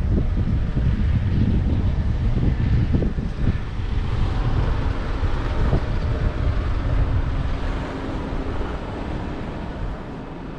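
Wind buffeting the microphone over a steady low engine rumble, with a faint constant hum.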